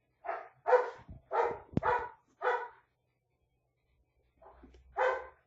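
Dog barking repeatedly: a run of about five short barks, a pause, then two more near the end.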